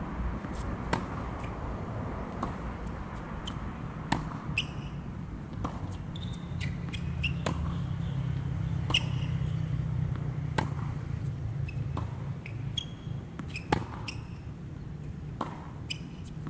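Tennis balls hit by racquets and bouncing on a hard court during a baseline rally: sharp pops every second or two, over a steady low rumble.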